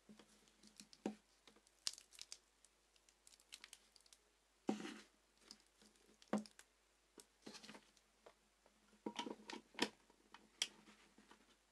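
Handling noise: irregular rustles, crinkles and small clicks as hands move a thick insulated cable and a plastic-wrapped toroidal transformer on a tabletop.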